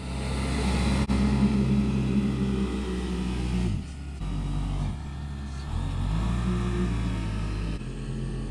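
Kubota tractor's diesel engine running under load, its speed dropping and picking back up several times.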